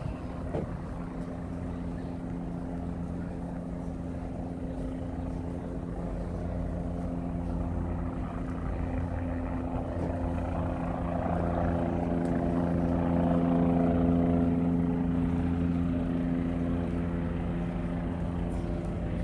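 A steady engine drone with a few held low tones. It swells to its loudest about two thirds of the way through, then slowly fades.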